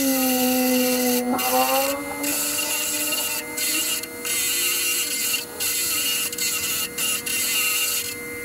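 6-inch bench grinder running, its spinning wheel brushing and grinding the face of a freshly cast aluminium block. There is a steady motor hum under a harsh hiss of metal on metal that drops out for a moment several times as the piece comes off the wheel.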